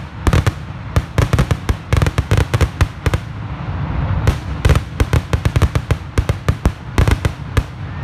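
Fireworks going off in a rapid barrage: dense, irregular bangs and crackles, several a second, with a brief thinner spell a little past three seconds in.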